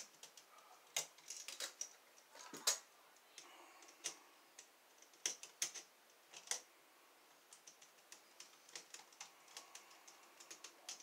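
Small metallic clicks and taps of a hand tool working copper wire onto the terminal screws of a wall outlet, irregular and loudest about three seconds in, with lighter, quicker ticks in the second half.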